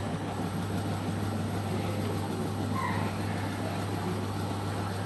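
Aqua Japan washing machine's spin-dryer motor running steadily with a constant low hum, on test after being given a larger 13 µF run capacitor to make the weak motor spin at full speed.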